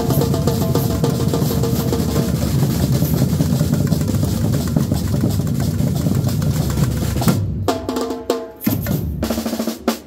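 Samba percussion band (batucada) drumming full-on with bass drums, snares and rolls, then breaking off about seven seconds in into a few separate accented hits that close the piece.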